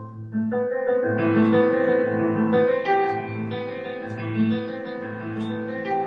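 Piano sound from a digital keyboard playing slow chords over a recurring low bass note, growing louder just after the start.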